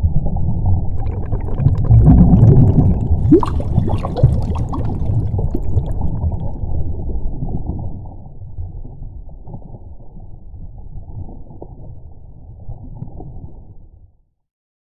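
Underwater sound effect for a logo animation: a muffled low rumble with gurgling bubbles and a short rising squeak a few seconds in. It is loudest in the first few seconds, then fades down and stops abruptly near the end.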